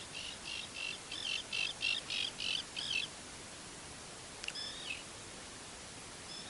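A songbird singing a run of repeated high chirping notes, about three a second, growing louder and stopping about three seconds in, followed a little later by one short call.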